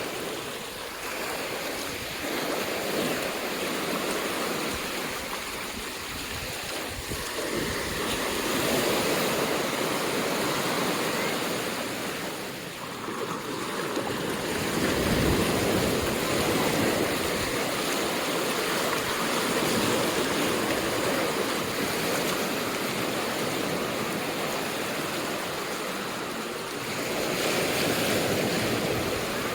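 Ocean surf breaking on a sandy beach, a continuous rushing wash that swells and eases over several seconds as waves come in.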